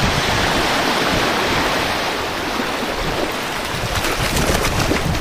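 Shallow surf washing in over flat sand: a steady rushing of small breaking waves, with gusts of wind buffeting the microphone.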